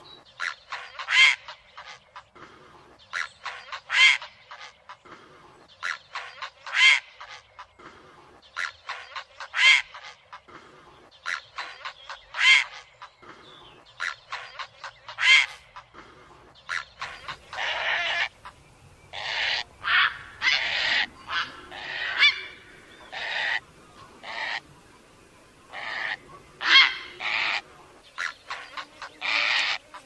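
Heron giving harsh squawking calls, a short call repeating about every three seconds, then from about halfway a series of longer, rougher calls close together.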